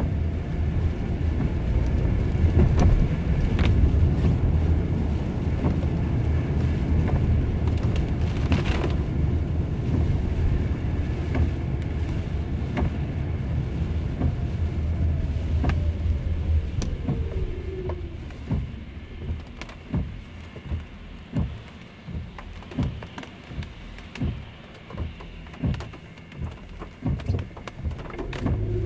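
Car cabin noise while driving on a wet road: a steady low rumble of engine and tyres on wet pavement. It fades as the car slows to a stop, and then regular sharp clicks come about twice a second.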